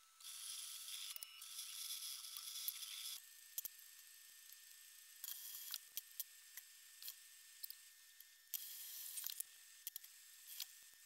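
Abalone being washed and scrubbed in a stainless steel kitchen sink: faint water hiss that starts and stops several times, with small sharp clinks of steel bowls and utensils.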